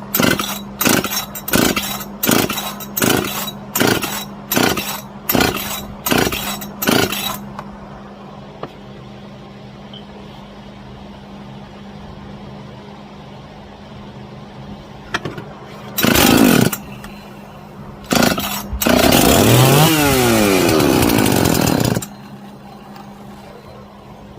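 Husqvarna 266SE two-stroke chainsaw, rebuilt with a 268XP cylinder, being pull-started. A quick run of cord pulls is followed by two short pops as it fires. It then catches and runs for about three seconds with a blip of revs before cutting out.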